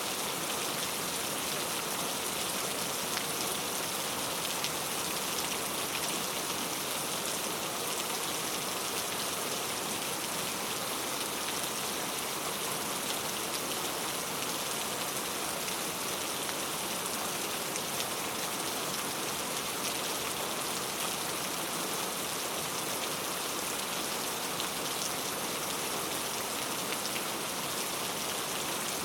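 Steady rainfall: an even hiss of rain with many small drop ticks, unchanging throughout.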